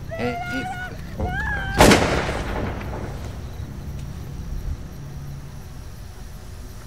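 A few short high-pitched sounds, then a single sudden loud bang about two seconds in that fades away over a couple of seconds.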